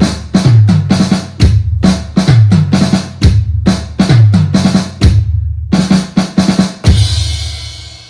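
Drum-led music: a steady rock beat of bass drum and snare, ending about seven seconds in with a cymbal crash that rings out and fades.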